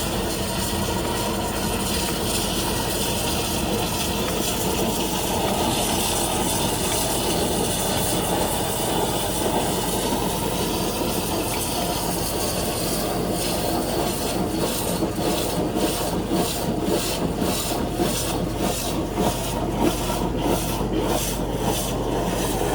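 High-pressure drain jetter running steadily: a petrol engine driving the pump, with the hiss of high-pressure water. About halfway through, a regular pulsing hiss, roughly two a second, joins it.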